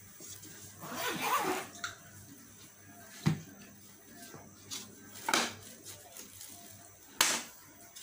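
A short zipper rasp about a second in, then three sharp clicks as the metal folding legs of a child's lap desk are folded flat against the board, the last click loudest.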